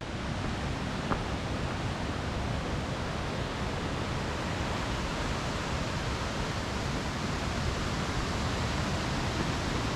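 Steady rushing of water from the mountain stream below Yoro Falls, an even wash of noise. One small click comes about a second in.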